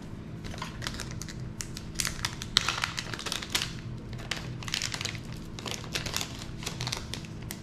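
Plastic and anti-static parts bags crinkling and rustling as they are handled, with many small irregular clicks and crackles.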